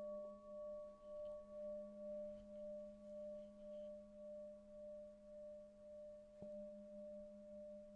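Singing bowl ringing on with a low hum and a higher overtone, wavering in a slow, even pulse and slowly fading. A faint short tap about six and a half seconds in.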